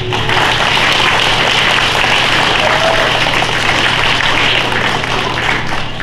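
Audience applauding: many hands clapping, starting suddenly as the music stops, holding steady and dying away near the end.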